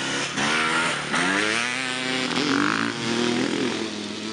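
Dirt bike engine accelerating hard. Its pitch climbs, drops back and climbs again about half a second and again about a second in as it shifts up, then holds near full speed.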